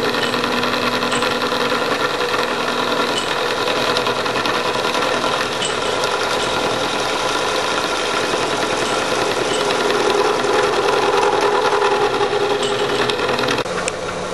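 Vertical milling machine cutting the mounting face of a steel Austin-Healey Sprite front spindle, one pass of a multi-step cut taking material off for a disc brake caliper bracket. The spindle motor and the cutter in the metal make a steady, loud machining noise that grows slightly louder, then drops away sharply just before the end as the cut finishes.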